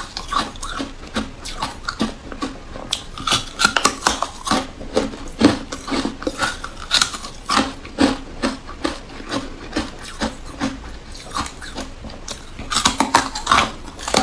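Biting and chewing sticks of porous pink carbonated ice: a steady, uneven run of sharp crunches and cracks, several a second.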